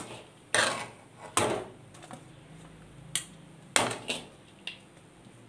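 A metal spoon scraping and knocking against a steel kadai as fried onions are scooped out into another dish: about five short clinks and scrapes, spaced irregularly.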